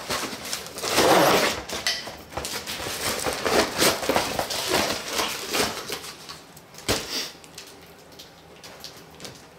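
Cardboard and packing tape tearing and crackling as a wrapped dirt-bike front fork leg is unwrapped, loudest about a second in, with one sharp knock near seven seconds in.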